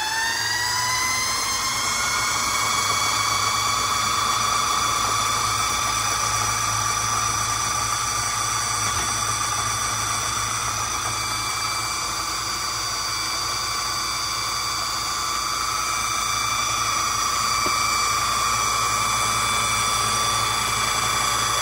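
Electric kitchen blender running, blending a thick avocado dressing: a high whine that rises over the first two seconds as the motor comes up to speed, then holds steady, super noisy.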